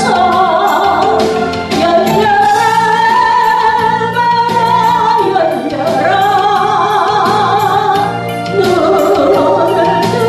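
A solo voice singing a Korean gospel praise song, holding long notes with vibrato, over instrumental accompaniment with a steady beat.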